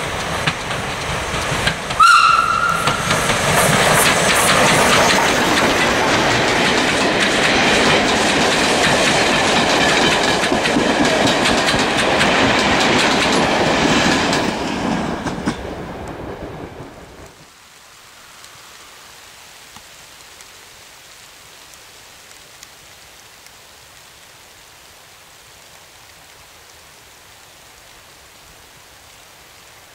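Ivatt class 2 steam locomotive 46512 running past with its train, with one short whistle blast about two seconds in. The train sound fades out over a couple of seconds a little past halfway, leaving a faint steady hiss.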